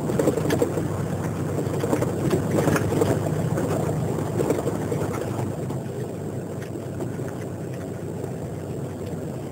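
Steady engine and road rumble inside a moving vehicle's cabin, with a few knocks and rattles in the first three seconds as it goes over the uneven street; the rumble eases off somewhat over the second half.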